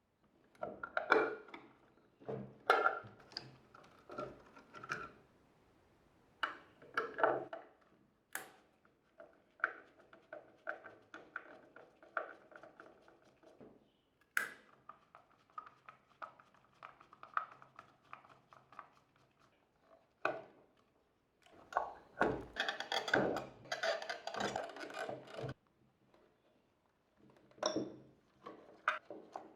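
Irregular clicks, knocks and short rattles of a Nespresso coffee machine's plastic parts and the tools on them as it is taken apart, with a few sharp single clicks.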